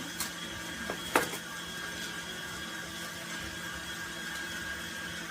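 Electric mixer running steadily at one speed, whipping brownie batter, with a high motor whine over a low hum. Two light clinks come about a second in.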